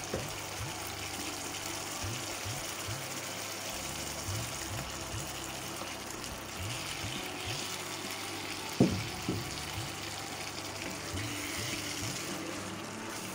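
Thin onion-and-spice masala sizzling steadily in a frying pan, with soft background music and a single thud about nine seconds in.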